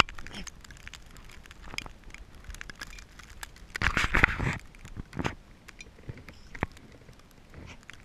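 Blizzard wind buffeting the camera microphone, with snow ticking and crackling against it in scattered clicks and a stronger gust about four seconds in.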